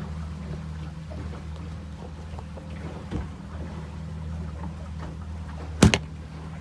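Engine running with a steady low drone throughout. Near the end a plastic cooler lid knocks shut once, the loudest sound.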